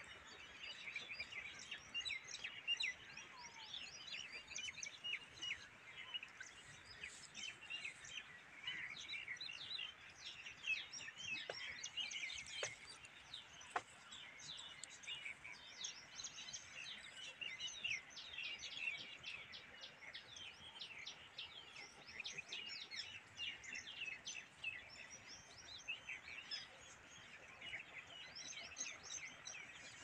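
Small birds chirping: many short, high chirps overlapping without a break.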